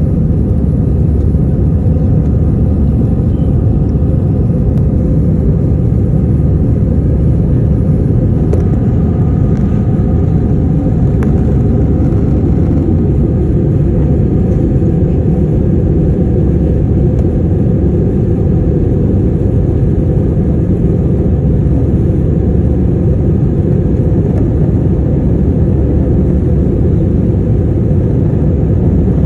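Steady jet airliner cabin noise, heard inside the cabin from a window seat: a loud, even rumble of the engines and the airflow, with faint whining tones above it.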